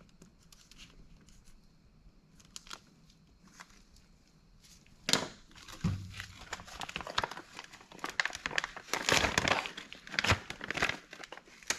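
Crinkling, rustling handling noise with scattered clicks. It is faint for the first few seconds, then a sharp click about five seconds in, after which the rustling gets busier and louder.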